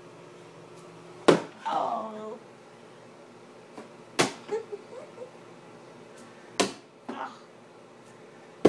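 Thrown objects smacking against the wall and door around a light switch, four sharp hits a couple of seconds apart, as someone tries to knock the switch off from across the room.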